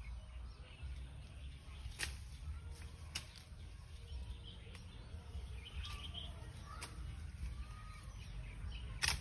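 Bamboo pole knocking among star fruit tree branches: a few sharp knocks, about two and three seconds in, and a louder one near the end, over a low steady rumble with faint bird chirps.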